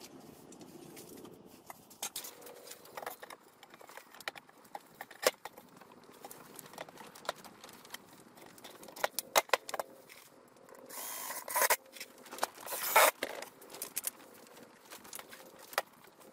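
Clicks, knocks and metallic clatter of steel sawhorse brackets and wooden legs being handled and set down on a wooden table, with two short scraping sounds about 11 and 13 seconds in.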